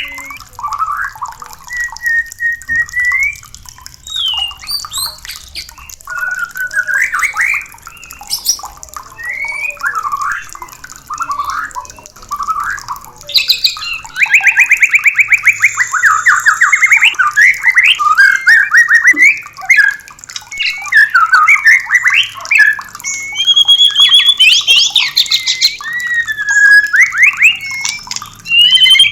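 White-rumped shama singing: a varied string of loud whistled phrases and pitch glides, with a fast dry rattle about halfway through.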